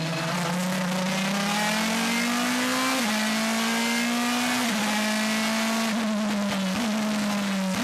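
Race car's V8 engine at high revs, pulling hard through the gears. Its pitch climbs slowly, then drops sharply at each of three upshifts.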